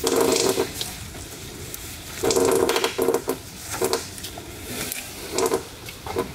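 Radiator drain petcock being twisted open by hand: short creaking, rasping bursts with clicks, loudest near the start and again about two seconds in.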